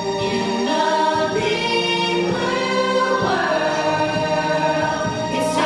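Stage-musical song: several voices singing together over backing music, with long held notes that change every second or so.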